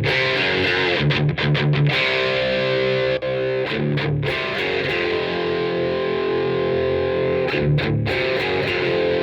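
Electric guitar played through a 1812 Custom Carabinier tube amplifier with a distorted tone. Chords ring out and are held for a second or more, with short breaks where the chord changes.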